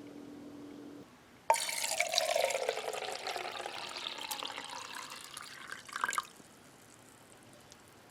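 Water running or pouring into a container, starting suddenly about a second and a half in and stopping abruptly after about four and a half seconds. A faint steady hum is heard in the first second.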